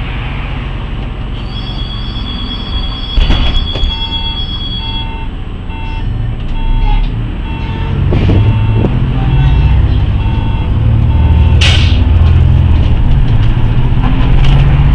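City bus at a stop: an electronic warning beeper sounds about two beeps a second while the doors shut with a knock, then the bus engine pulls away, growing louder, with a short hiss of compressed air about three-quarters through.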